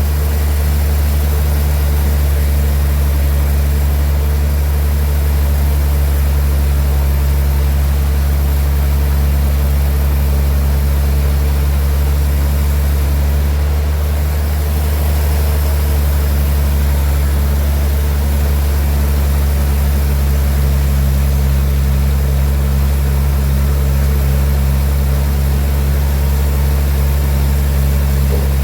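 Sawmill machinery running steadily: a loud, deep, even hum with no change in pace.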